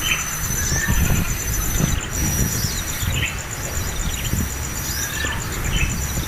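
Bird chirping: short, high chirps about every half second to a second, over a steady thin high-pitched tone and a low rumble.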